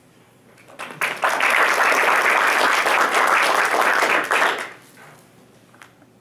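Audience applauding, starting about a second in, holding for about three and a half seconds, then dying away.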